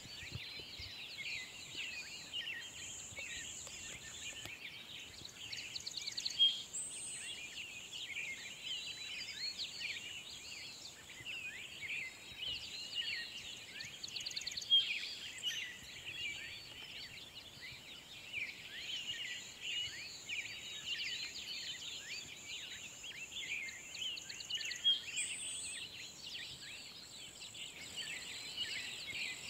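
A dense chorus of many songbirds chirping and warbling together over a steady high-pitched buzz. A few louder calls and rapid trills stand out, about six, fifteen and twenty-five seconds in.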